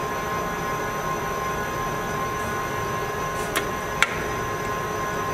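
Acer 1440V precision lathe running steadily with a constant whine and hum from its 3 HP Leeson spindle motor. Two sharp clicks about half a second apart, the second louder, come as a hand works the carriage apron controls.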